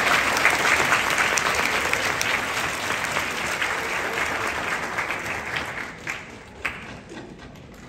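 Audience applauding, loudest at the start and slowly dying away, with a few last separate claps near the end.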